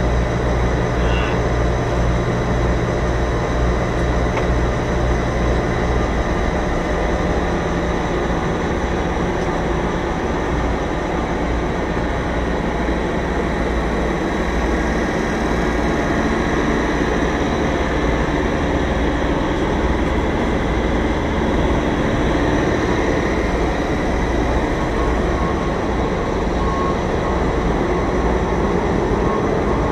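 Semi truck's diesel engine running steadily at low revs as the tractor-trailer creeps backward at walking pace. Its even low tone changes and turns rougher about six seconds in.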